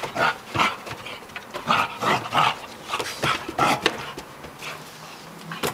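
Two dogs play-wrestling at close range: a quick, irregular run of short dog sounds through the first four seconds, easing off after that, with one sharp click near the end.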